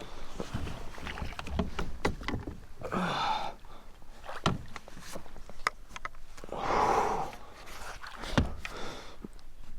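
Water splashing and sloshing beside a small fishing boat as a hooked striped bass is played at the surface, with two louder splashes, about three seconds in and near seven seconds, and scattered sharp clicks and low knocks from the hull and gear.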